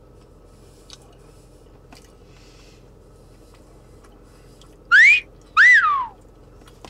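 A two-part wolf whistle: a rising note about five seconds in, then a second note that rises and falls.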